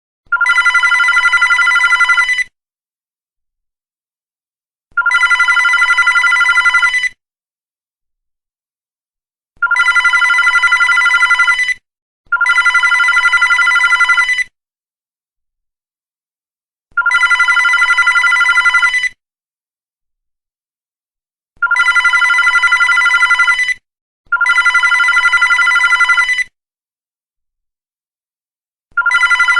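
Home landline telephone ringing. The rings are about two seconds long and separated by silent gaps, some coming singly and some in close pairs. There are seven full rings, and an eighth starts near the end.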